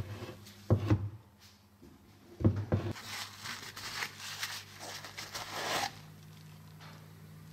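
Two short knocks of a metal carburettor handled on a workbench, then paper towel rustling as it is rubbed over the carburettor's top, over a low steady hum.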